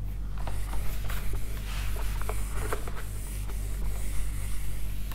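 Felt whiteboard duster being wiped hard across a whiteboard: a scratchy rubbing hiss broken by quick strokes and light knocks.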